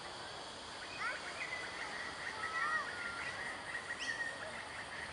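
Birds calling: a string of short chirps and whistled notes, some sliding up or down in pitch, over a steady high tone and outdoor background noise.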